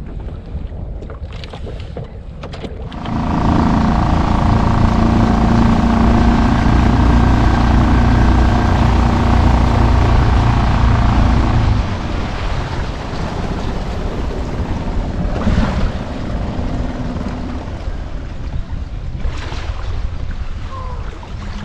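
Small outboard motor on a fishing kayak running with a steady hum, mixed with wind and water rush. About twelve seconds in it drops to a lower, rougher level.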